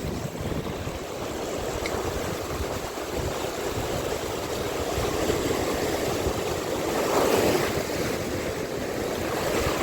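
Steady noise of wind and sea waves, with no clear strokes or tones, swelling a little about seven seconds in.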